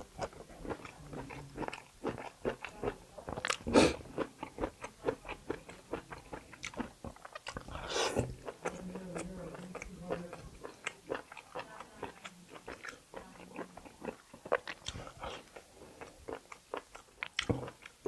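Close-miked eating: wet chewing and biting with many small mouth clicks and smacks, and a couple of louder bites about 4 and 8 seconds in, as tough kalij pheasant meat is chewed.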